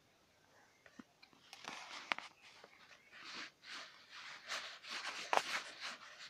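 Phone handling noise: irregular rubbing and rustling against the phone, with a few sharp clicks, starting about a second in and growing a little louder toward the end.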